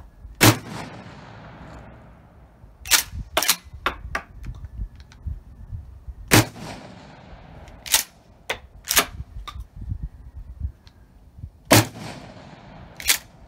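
Mossberg Maverick 88 pump-action shotgun fired three times, about five to six seconds apart, each shot trailing off in a fading echo. Between the shots come pairs of sharp clacks as the pump is racked back and forward to chamber the next shell.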